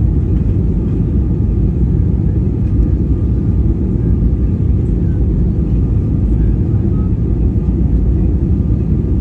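Airliner noise during a landing: a steady low rumble of engines and rushing air, with no sudden change.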